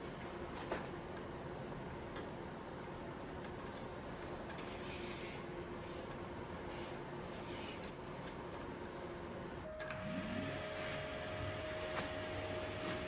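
Wood lathe switched on about ten seconds in, its motor spinning up with a brief rising whine and settling into a steady higher whine as the turned piece spins in the chuck. Before that, a steady background hum with light knocks of hands handling the stopped workpiece.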